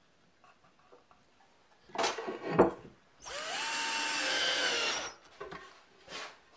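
Cordless drill driving a screw into plywood for about a second and a half, its motor pitch rising as it spins up and then holding steady. A short knock and clatter comes about a second before it.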